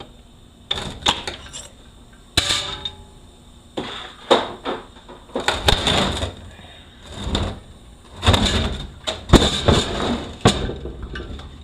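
Irregular metal clanks and knocks, one with a brief metallic ring, from parts and hand tools being handled while a 6L80E automatic transmission is taken apart.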